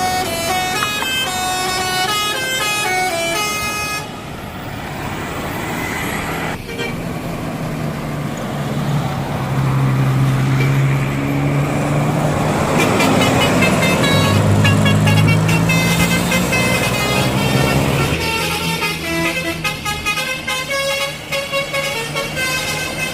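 Bus 'telolet' multi-tone air horn (Basuri type) playing a quick tune of short stepped notes, then a bus engine passing with its pitch rising and falling, then another horn tune near the end.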